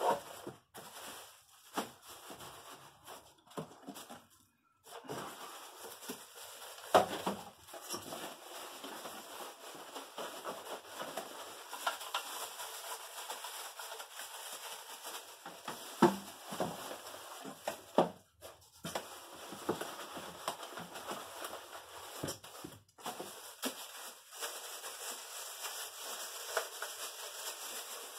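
Plastic-bagged stereo units being handled and fitted into a cardboard box: rustling plastic with irregular small knocks against the cardboard, the sharpest about seven seconds in and twice more past the middle.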